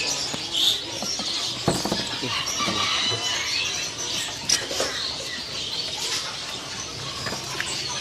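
Many caged songbirds chirping and calling at once, a dense chorus of short high notes. Two sharp knocks stand out, about two seconds in and again near the middle.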